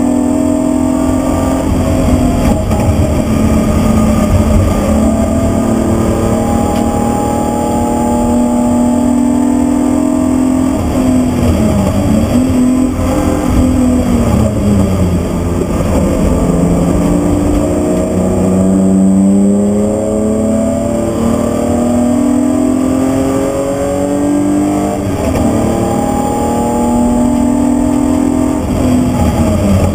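BMW E36 323i's straight-six engine pulling hard, heard from inside the roll-caged cabin at speed over road noise. Its pitch rises under acceleration and drops briefly several times as the driver shifts and lifts. It falls lowest about halfway through, then climbs again.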